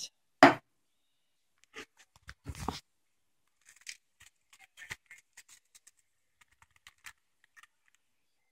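A can set down with one sharp knock about half a second in, then a plastic zip-top bag crinkling in small scattered crackles as crushed tablet powder is shaken out of it.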